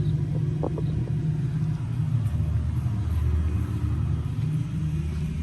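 Low, steady rumble of a running heat pump unit, its compressor and fan, shifting to a lower pitch a little over two seconds in.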